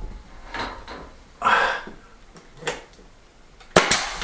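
Pneumatic pin nailer firing twice in quick succession near the end, two sharp cracks driving pins through wooden trim into the ceiling. Softer rustles and knocks of handling come before.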